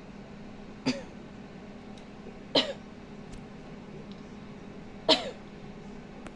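A person coughs three short times, about a second in, near the middle and near the end, over a steady low hum.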